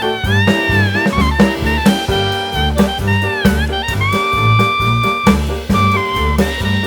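Background music: upbeat jazzy tune with a steady bass beat and a horn-like melody with bending, held notes.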